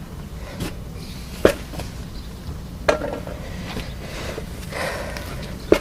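A few sharp clicks and light knocks of tools and metal brake parts being handled, with a brief rustle near the end, over a steady low hum.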